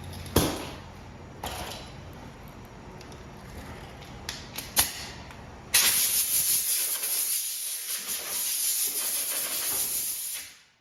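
A few sharp clicks and knocks, then a loud, steady hiss that starts suddenly about six seconds in and cuts off just before the end.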